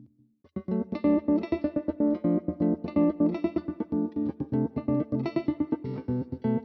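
Guitar played through a Stambecco effects preset: after a brief near-silent gap, a quick run of plucked notes starts about half a second in, with a bright, full tone and a steady rhythm.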